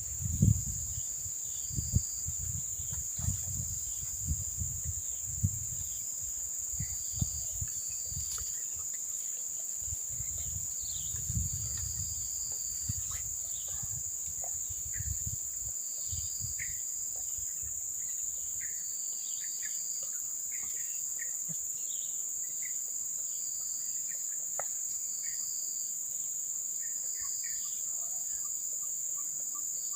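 Crickets chirring in a steady high-pitched drone, with scattered short bird chirps. Low rumbling thumps come and go through the first half, then stop.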